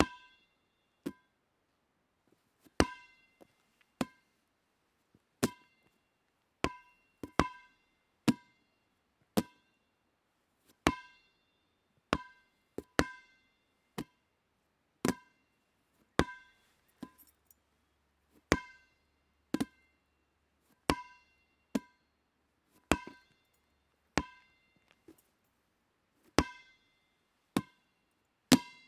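Rubber dodgeball bouncing on a hard floor in a long series of single bounces, about one a second at uneven gaps. Each bounce is a sharp hit with a brief hollow ring.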